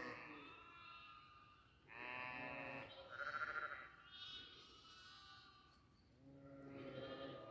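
Several goats bleating one after another, about five calls, some low and some much higher-pitched.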